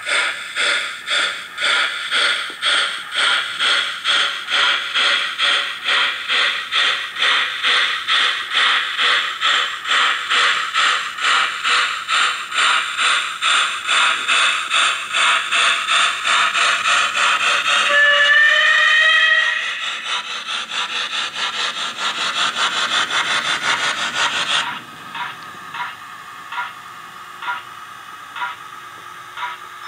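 Howes of Oxford sound decoder in a Hornby OO-gauge 'Merchant Navy' model steam locomotive, played through a small bass-enhanced speaker: recorded steam exhaust beats, fast and steady with hiss. A short whistle sounds about two-thirds through, then the beats carry on and drop suddenly to quieter, slower beats near the end.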